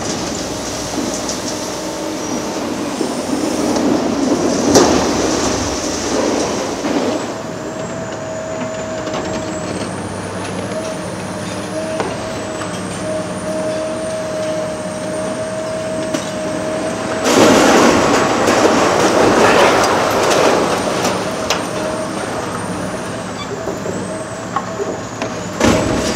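Hydraulic demolition excavator at work, its diesel engine running under a steady whine. Twice the shear crunches and scrapes into building material: once a few seconds in, and louder about two-thirds of the way through.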